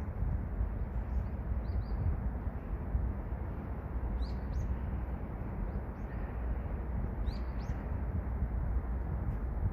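Small bird giving short high chirps every second or two, with quick clusters about four and seven seconds in, over a steady low rushing noise.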